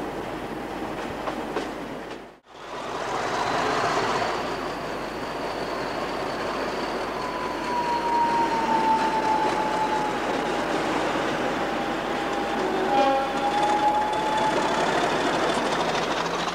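British Rail Class 50 diesel locomotives running, with the clatter of train wheels over rail joints. After a brief cut about two seconds in, a pair of Class 50s run through a station. Their English Electric 16-cylinder engines make a dense running sound with a high whine that sinks a little in pitch as they pass close by.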